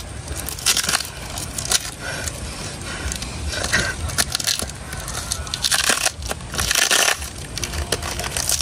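Tape and wrapping paper being peeled and torn off a heavily wrapped small gift box by hand: irregular crackling and crinkling, with two longer rips a little past the middle.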